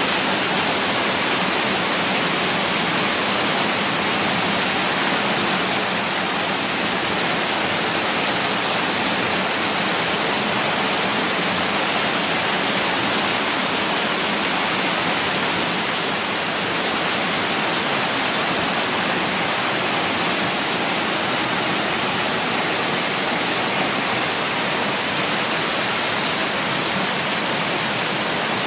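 Steady rush of runoff from a heavy downpour cascading down concrete steps and flowing across a flooded floor.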